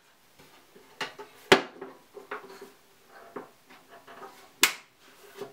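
Wheel-cover doors of a Ryobi 9-inch benchtop band saw being swung shut and latched: a string of knocks and rattles, with sharp clacks about a second and a half in and near the end.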